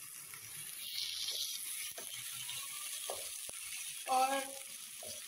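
Sliced onions and ginger-garlic paste sizzling in hot oil in a nonstick wok, with a silicone spatula scraping and stirring through them. A short, louder pitched squeak comes about four seconds in.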